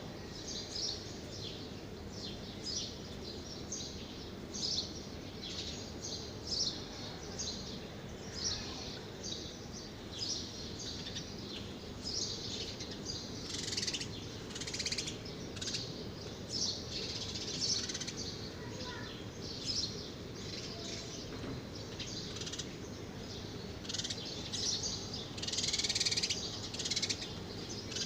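Small birds chirping again and again in short high calls, over a steady low background rumble; the chirping is densest about twenty-five seconds in.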